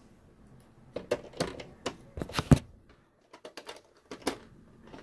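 Irregular clicks and taps of a screwdriver and screw against a TV's metal chassis as a screw is driven in, with one louder knock about two and a half seconds in.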